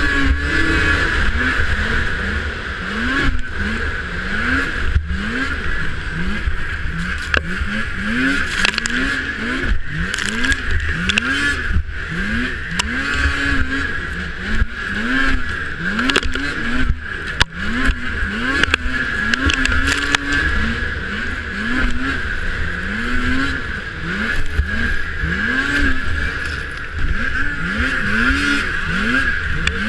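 Two-stroke race snowmobile heard from on board at racing speed: the engine pitch climbs and drops about once a second as the throttle is worked over the bumps and turns, over a steady high whine, with occasional knocks from the sled hitting bumps.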